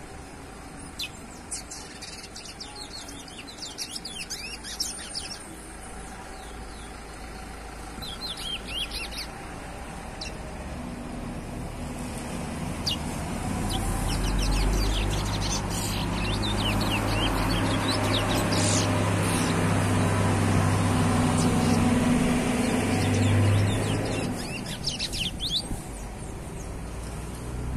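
Young chestnut-bellied seed finch (curió) singing phrases of quick high notes, on and off throughout. A truck engine rumbles past from about eleven seconds in and fades about twenty-five seconds in, loudest in the middle, and the bird keeps singing over it.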